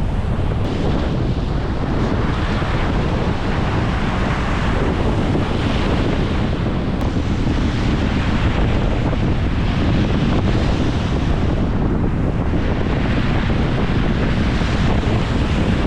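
Strong wind buffeting the microphone over the steady wash of lake surf breaking on the shore.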